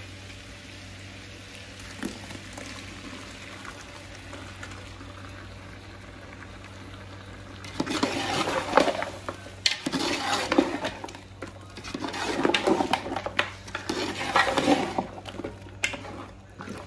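A steady low hum, then from about eight seconds in, a metal spoon stirring and scraping chunks of meat and pureed tomato in a steel pot, with sharp clinks of spoon against pot.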